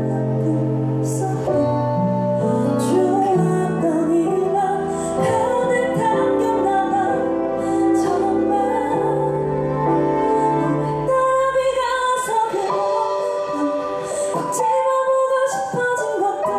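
A woman singing a ballad into a handheld microphone over soft backing music. The low notes of the accompaniment drop away about twelve seconds in, leaving the voice over a thinner backing.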